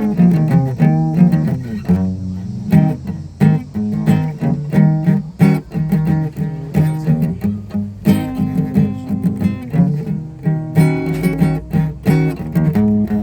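Guitar music: quick plucked notes and strums in a continuous run of pitched notes.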